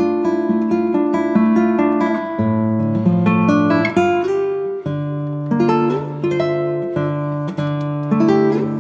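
Instrumental acoustic guitar music: plucked notes and chords over a slow-changing bass line.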